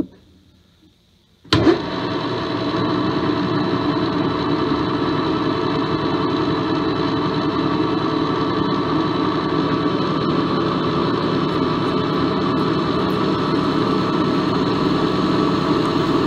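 Metal lathe spindle starting suddenly about a second and a half in, then running steadily with a mechanical hum. Near the end a large twist drill is cutting into the spinning aluminium stock.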